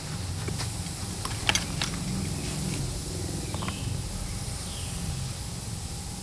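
Steady low background hum and hiss, with a few short sharp clicks and taps of parts being handled. The two loudest come close together about a second and a half in.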